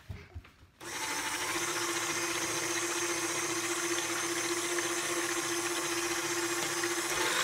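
A few soft knocks of a rolling pin on the counter. From about a second in, an electric stand mixer runs steadily with its wire whisk beating a pale, frothy mixture in a steel bowl, making a loud, even whirr with a steady motor whine.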